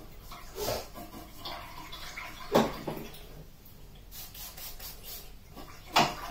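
A face-painting brush swished in a water pot, with a few short knocks against the pot and paint tins; the loudest knock comes about two and a half seconds in.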